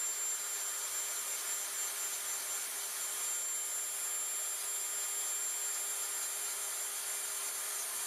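Dremel 3000 rotary tool running at a steady high speed with a coarse blue ceramic stone bit, grinding texture into tupelo wood: a constant high whine over an even grinding hiss.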